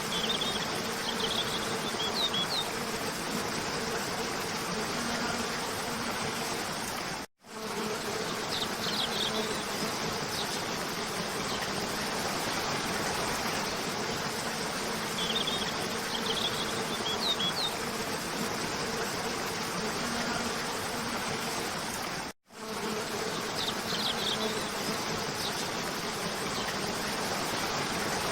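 Steady rush of a cascading waterfall, with short clusters of high bird chirps about every seven seconds and a faint steady hum beneath. The sound cuts out completely for an instant twice, at the joins of a loop.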